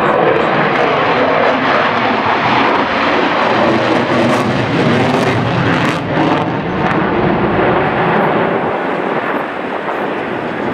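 Aircraft engine noise from a flying display, loud and steady with a slight wavering, easing a little near the end.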